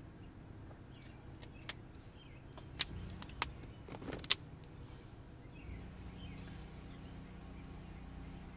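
Steady low hum while a car sits on a DC fast charger, with a handful of sharp clicks and taps in the middle, the loudest about four seconds in. The hum steps up slightly about six seconds in.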